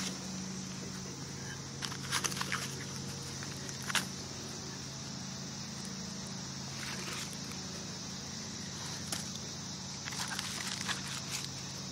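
Steady high insect drone over a low hum, with scattered short clicks and crackles: a cluster about two seconds in, one at four seconds, and more near the end.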